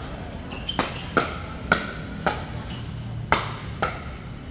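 Pickleball rally: paddles hitting the hollow plastic ball back and forth, about six sharp pops at uneven intervals, each with a short ring.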